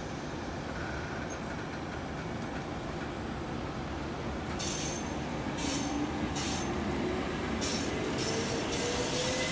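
Class 69 electric multiple unit pulling away, its motor whine rising in pitch as it gathers speed from about halfway through. Short bursts of hiss run alongside the whine.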